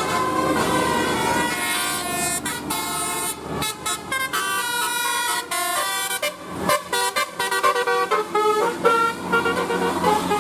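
Indonesian bus 'telolet' multi-tone air horn playing a melody: a run of held horn notes that step from pitch to pitch every fraction of a second, with short breaks between them.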